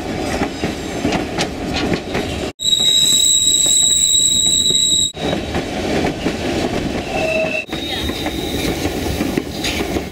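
Narrow-gauge White Pass & Yukon Route train running along the track, its wheels rumbling and clattering on the rails. About two and a half seconds in, a high steady wheel squeal starts suddenly and lasts about two and a half seconds.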